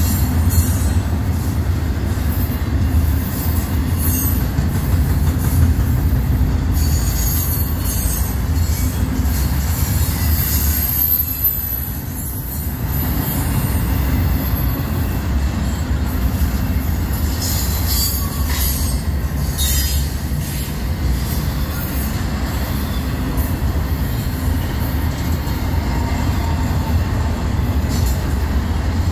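Double-stack intermodal freight train's well cars rolling past close by: a steady low rumble of steel wheels on rail, with high wheel squeals a few times, most clearly about a third and two thirds of the way through.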